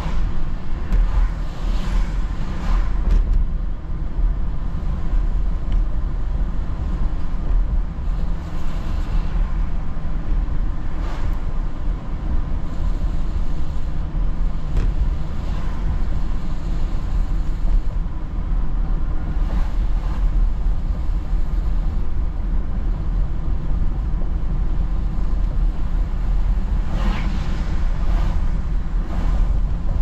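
Steady in-cabin road noise of a moving car: a low rumble of engine and tyres with a hiss from the wet pavement, swelling briefly a few times, most clearly near the end.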